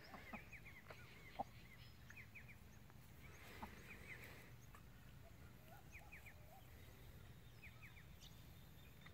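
Faint farmyard ambience: chickens clucking softly, with small birds chirping in the background and a single sharp click about a second and a half in.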